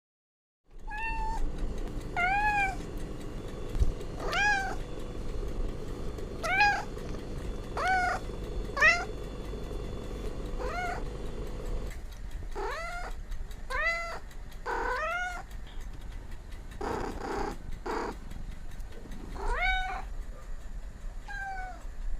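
Cat meowing over and over: short, high-pitched meows that rise and fall, roughly one every one to two seconds. A faint steady hum lies underneath for the first half.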